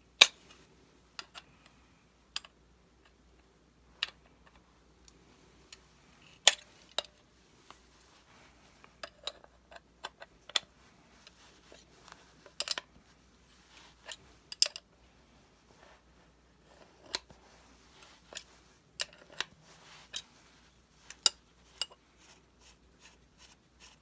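Scattered, irregular sharp metal clicks and knocks from handling a Kral Puncher Breaker PCP air rifle's valve assembly and a 13 mm open-end wrench on a wooden workbench, as the loosened valve is unscrewed from the air reservoir. Near the end comes a quick run of small ticks.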